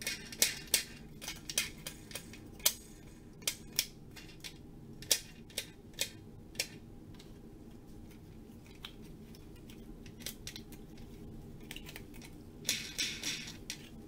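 Irregular sharp plastic clicks and taps from handling a printer's plastic cover panel with its small rollers while oiling them, with a quick run of clicks near the end.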